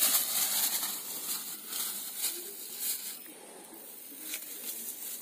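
Rapid rustling and rattling as a freshly caught fish is handled into a container, loudest for about the first second, then fading to faint scattered rustles and clicks.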